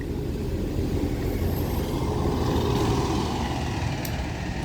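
A motor vehicle passing by: a steady rumble with tyre hiss that swells to a peak about three seconds in, then eases off.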